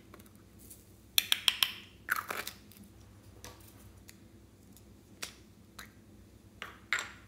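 Plastic clicks and scrapes from a mouse-shaped lip balm case being handled and pulled open: a quick run of four sharp clicks about a second in, a short scrape just after, then scattered single clicks and a louder click near the end.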